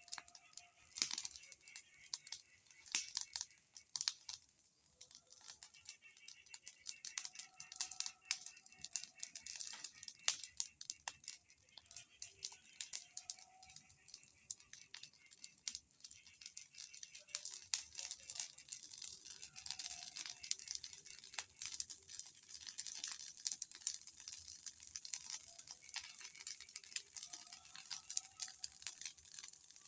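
Bonfire crackling: a steady stream of irregular sharp pops and snaps.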